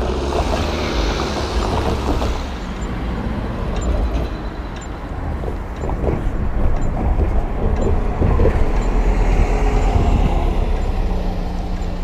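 City bus passing close by at an intersection, its engine and tyres growing louder through the second half, over steady street-traffic rumble.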